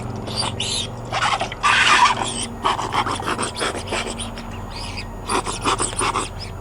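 A dog playing in a shallow kiddy pool of water: a quick, irregular run of short splashing and breathy panting sounds.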